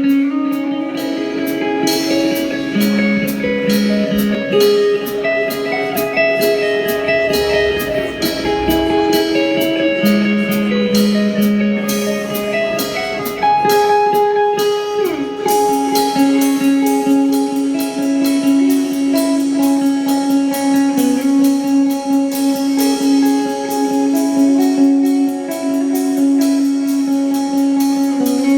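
Live rock band playing: sustained electric guitar notes and melody over a steady drum beat, with one held note bent down in pitch about halfway through.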